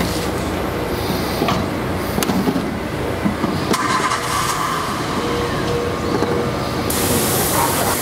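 Steady road-traffic and outdoor background noise. The electric scooter's small hub motor cannot be picked out in it.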